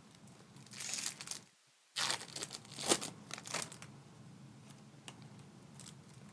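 Foil trading-card pack wrappers crinkling and tearing as packs are opened by hand, in irregular bursts, loudest about two to four seconds in.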